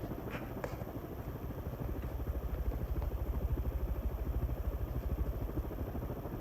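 Panasonic King Arthur ceiling fan running on high speed: a steady rush of air from the blades with a fast, even pulsing, and two faint clicks in the first second.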